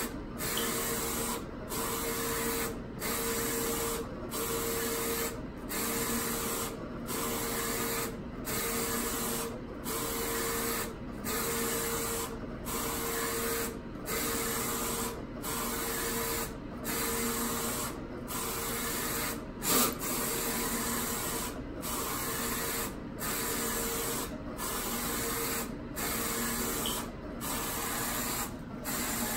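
Roland Hi-Fi Jet wide-format eco-solvent inkjet printer printing: the print-head carriage sweeps back and forth with a steady motor whine on each pass, pausing briefly between passes about every one and a half seconds. A single short knock about two-thirds of the way through.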